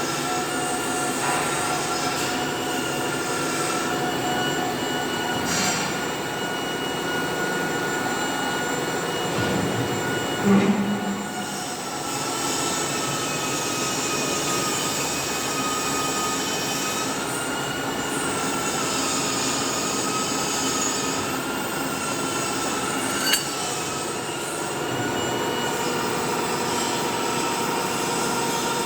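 Industrial drilling machine running, a steady high-pitched whine made of several slightly wavering tones over mechanical noise. There is a loud thump about ten seconds in and a short sharp click later.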